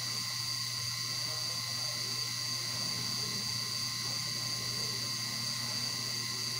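Steady electric motor hum with a constant high whine, unchanging in level.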